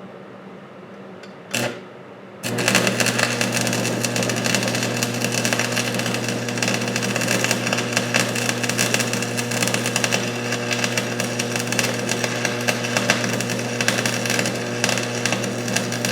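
Stick-welding arc from a 1/8-inch 6013 rod. A brief strike about a second and a half in, then the arc catches about a second later and crackles and sizzles steadily over the welder's steady low hum, until it stops at the very end. The short first strike before the arc holds is a test of how readily the burnt rod end restrikes.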